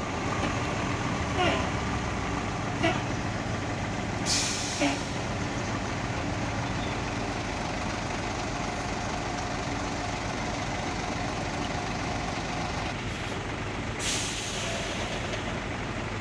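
Diesel bus and truck engines idling in a stopped queue, with two sharp hisses of air brakes venting air, about four seconds in and again near fourteen seconds.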